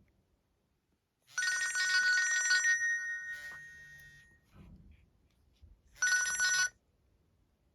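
Nokia E65 mobile phone ringtone imitating a telephone bell: a ring of about a second and a half with steady high tones that fades away, then a second, shorter ring about six seconds in.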